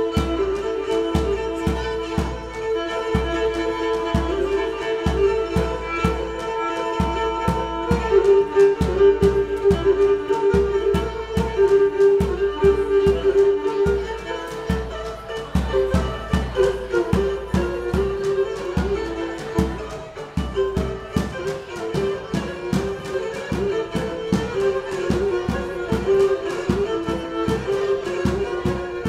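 Pontic lyra (kemenche) bowing a lively dance melody over the steady beat of a daouli bass drum, played live.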